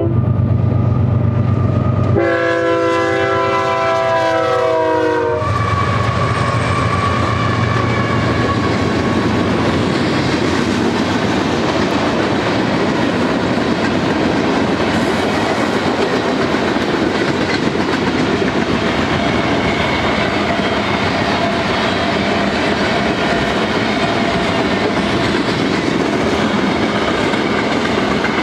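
BNSF diesel freight locomotives sound a long multi-tone horn blast about two seconds in and rumble past. The freight cars of the manifest train then roll by with a steady clatter of wheels on the rail joints.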